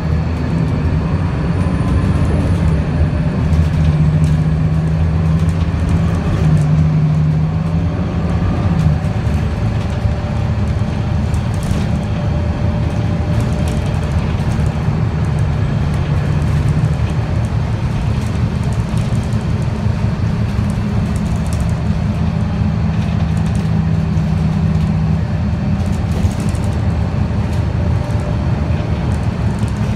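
Scania L94UB CNG city bus's gas engine and drivetrain heard from inside the passenger cabin while driving: a steady low drone, with a humming engine note that comes and goes several times.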